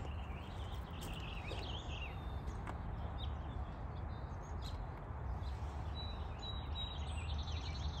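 Several wild birds chirping and singing in quick, high phrases, busiest in the first two seconds and again near the end with a few short whistled notes, over a steady low background rumble.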